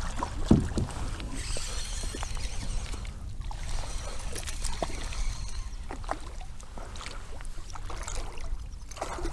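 Water sloshing and splashing around a kayak, with scattered knocks and clicks from the hull and gear while a bass is being landed. There is a low thump about half a second in.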